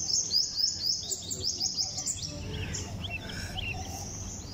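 Small bird singing: a fast run of high chirps, about five a second, for the first two seconds, then scattered softer chirps.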